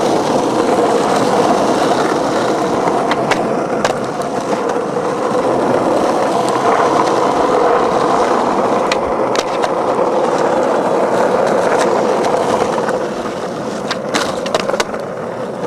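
Skateboard wheels rolling on concrete: a steady, loud rumble with a few sharp clacks, several in a cluster near the end.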